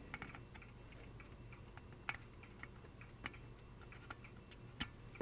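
Faint, scattered small clicks and taps from handling a circuit board while an old electrolytic capacitor is desoldered and pulled out, with a few sharper clicks about two, three and nearly five seconds in, over a steady low hum.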